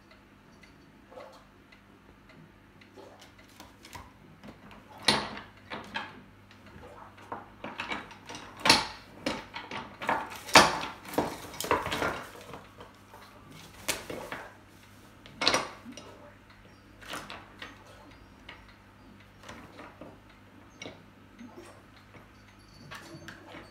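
Hard toy pieces clattering and clinking as a cockatoo plays with its toys: irregular knocks and rattles, busiest in the middle.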